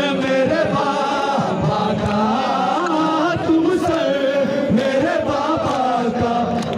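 Men chanting a noha, the Shia lament, in chorus through handheld microphones, with rhythmic chest-beating (matam) from the mourners under the singing.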